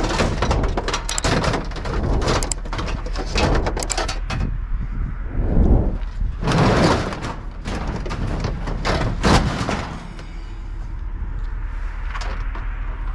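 Clunks, knocks and rattles of a pickup truck's tailgate and bed panel being worked open, busiest over the first few seconds, with the heaviest clunks about halfway through and a lone knock later on.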